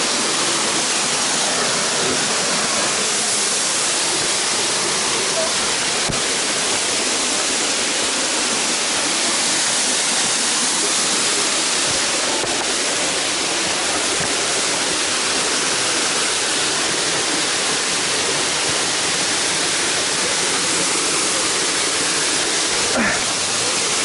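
Waterfall rushing close by: a steady, loud wash of falling water.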